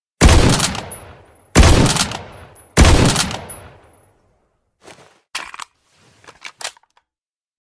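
Sound effect of a K14 sniper rifle firing three loud shots about a second and a half apart, each trailing off in a long echoing tail. A few short mechanical clicks and clacks follow.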